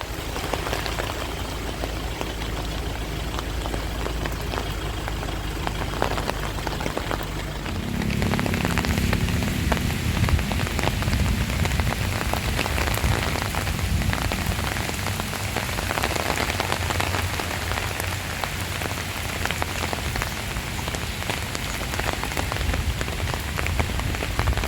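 Heavy rain pelting down on a surface, a dense patter of drops that grows heavier about eight seconds in, with a low steady hum underneath.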